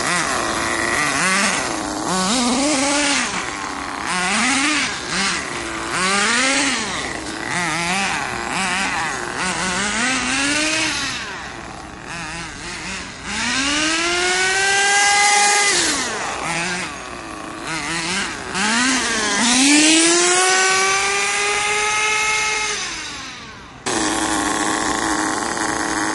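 Small nitro engine of an RC monster truck revving, with its pitch rising and falling. It starts with short throttle blips, then makes two long high-revving runs. Near the end it changes abruptly to a steady, lower hum.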